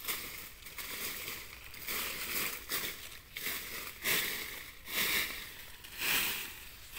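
Dry leaf litter and leaves rustling and crackling in irregular bursts as a hand picks through the forest floor.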